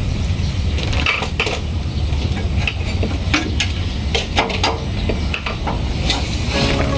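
Irregular metal clinks and scrapes from tools working on greasy metal parts, over a steady low rumble.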